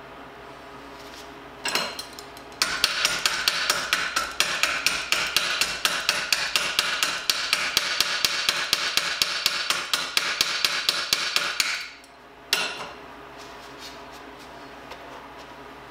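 A hammer striking the freshly welded steel wheelbarrow rim in the vise, a fast even run of blows about four or five a second for some nine seconds, after a single knock.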